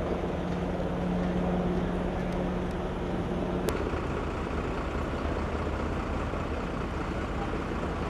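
Idling vehicle engines with outdoor street noise. A steady low engine hum stops suddenly with a click about three and a half seconds in, leaving an even hiss of traffic noise.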